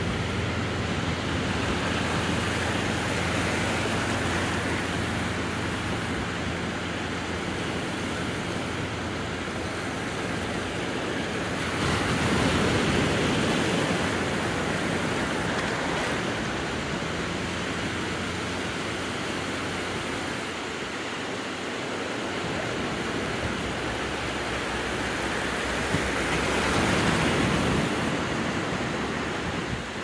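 Ocean surf: small waves breaking and washing up the beach in a continuous hiss and rush, with louder surges about twelve seconds in and again near the end as bigger waves break.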